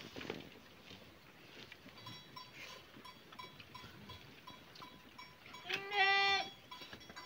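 A sheep bleats once, a single call of under a second near the end, over faint, regularly repeated short tinkling tones.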